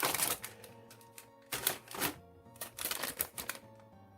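Plastic model-kit parts and runners being handled: irregular clicks and short rustles, with faint background music.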